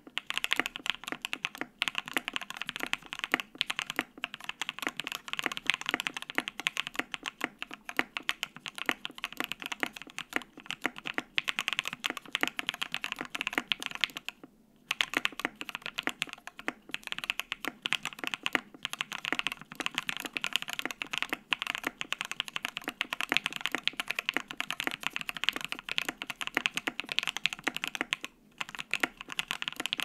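Fast, continuous typing on a KBDfans D84 75% gasket-mount mechanical keyboard with stock Water King switches on its aluminium plate, PBT keycaps and plate foam only: a dense run of keystroke clacks. There is a brief pause about halfway through and another near the end.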